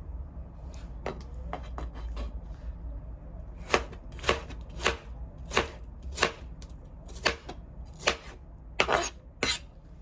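Knife chopping food on a cutting board, one chop at a time at under two a second: faint at first, louder from a few seconds in. A steady low hum runs underneath.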